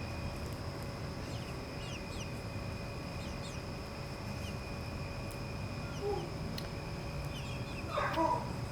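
Young chickens peeping and clucking with short falling chirps, and a louder call about 8 seconds in.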